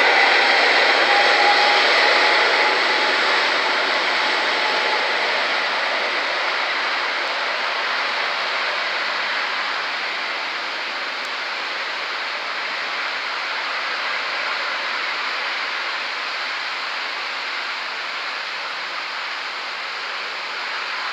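A Boeing 777-300ER's two GE90-115B turbofan engines at takeoff thrust during the takeoff roll: a steady jet rush with a thin whining fan tone in the first few seconds. The sound slowly fades as the airliner moves away.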